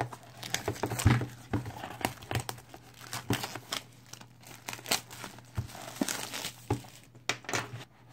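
Packaging of a boxed Bluetooth speaker being opened by hand: irregular crinkling, rustling and tearing, with many scattered sharp clicks.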